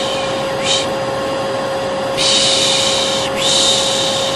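Hair dryer running steadily with a constant hum, overlaid with a repeated 'shh' shushing. Each shush lasts a second or so, with short breaks between them: white noise for soothing a colicky baby.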